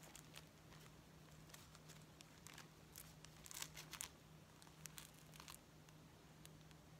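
Faint crinkling and rustling of a kit package and stitched Aida cloth being handled and held up, in short scattered bursts, the loudest around the middle. A faint steady low hum lies underneath.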